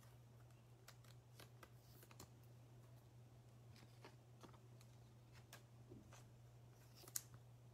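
Faint clicks and soft rustles of trading cards being handled and laid on a table, with one sharper click about seven seconds in, over a steady low hum.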